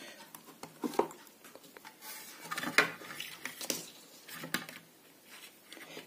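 Scattered light clicks, taps and rustling of hand work: a screwdriver and wire being worked at a small speaker driver's terminals inside its plastic cabinet.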